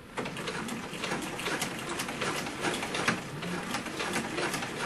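Domestic sewing machine stitching a long straight seam, starting up at once and running at a steady speed with a fast, even clatter of needle strokes. It is topstitching close to the edge of an interfaced fabric belt.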